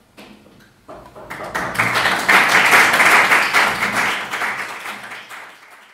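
Audience applauding: many hands clapping, swelling over the first couple of seconds, loudest around the middle and tapering off near the end.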